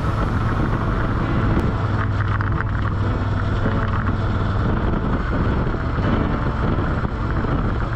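Motorcycle engine running steadily at cruising speed, heard from a camera mounted on the moving bike, with wind rushing over the microphone and road noise.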